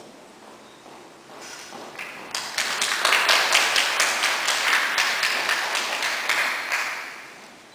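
Audience applauding, building up about two seconds in and dying away near the end, greeting the conductor as she walks on stage.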